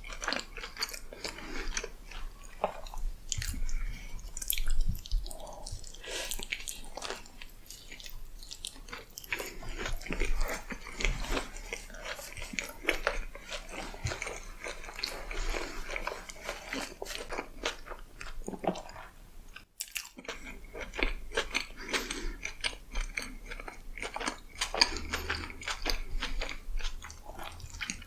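A person biting and chewing food close to the microphone: a dense, uneven run of small crisp mouth clicks and bites, breaking off for a moment about two-thirds of the way through.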